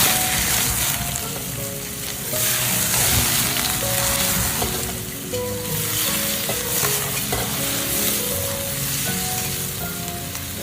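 Snakehead fish slices sizzling in hot oil as they are stir-fried, the sizzle swelling and easing each time they are turned.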